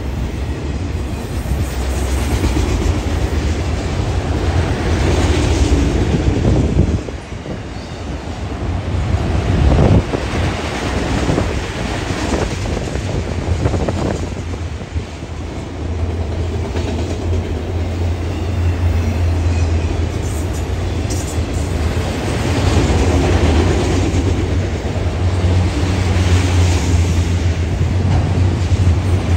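Freight train of autorack cars rolling past: a steady rumble of steel wheels on rail, with a few sharper clacks about a third of the way in.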